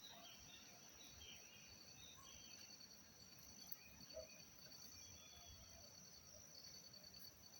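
Faint countryside ambience of insects trilling: one steady high-pitched trill and another that pulses in a fast even beat, with scattered short bird chirps.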